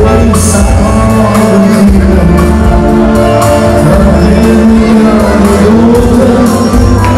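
A song playing: music with a singing voice over a steady bass line.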